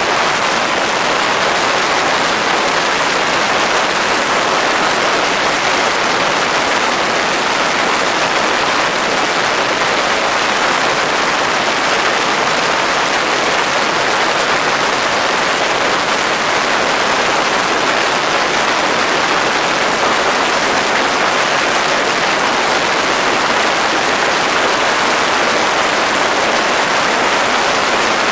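X'Air microlight's engine and propeller running steadily on a ground run, heard as an even rush of noise. It is a static RPM check after a propeller pitch adjustment, in which the owner finds the engine short of power at only about 5900 rpm.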